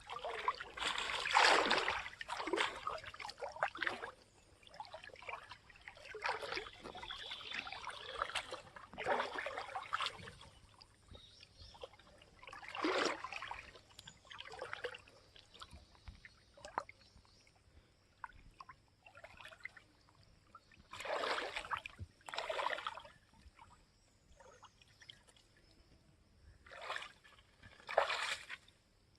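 Water sloshing and splashing in irregular short bursts. They come thick and fast for the first ten seconds or so, then as a few separate splashes.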